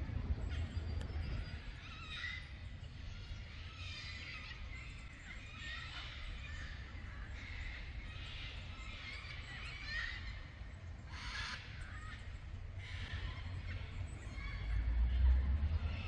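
Wild birds calling in forest: a string of short calls, with one louder, harsh squawk about eleven seconds in. A low rumble underneath swells near the end.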